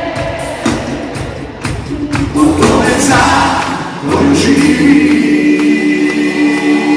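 Live band playing in an arena, with singing that the crowd joins, heard from among the audience. A steady beat runs through the first half, and about four seconds in a long held chord swells in.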